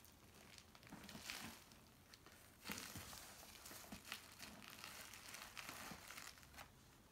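Faint crinkling and rustling of bubble wrap and packing material being handled, in a string of short, uneven rustles.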